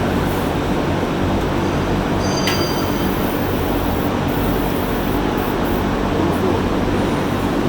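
Steady mechanical drone of running shop machinery, a low even hum under a broad hiss, with one short metallic click about two and a half seconds in.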